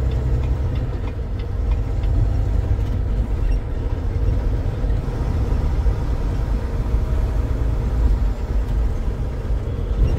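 Semi truck's diesel engine running steadily while driving, heard from inside the cab as a constant low rumble.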